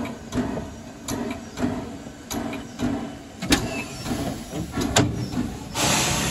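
Narrow-gauge saddle-tank steam locomotive Talyllyn moving slowly, its exhaust chuffing about one and a half times a second, with a longer hiss of steam near the end.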